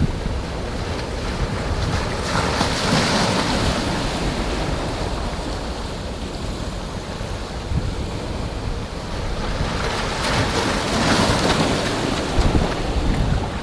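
Rough sea with waves breaking and washing in strong wind, under a constant low rumble of wind buffeting the microphone. Two larger waves surge up and fall away, about two seconds in and again about ten seconds in.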